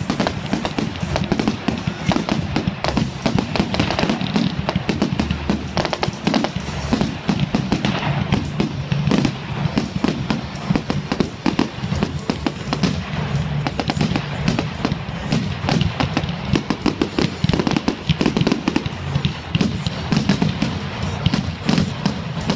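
Fireworks display: aerial shells launching, bursting and crackling in rapid, continuous succession.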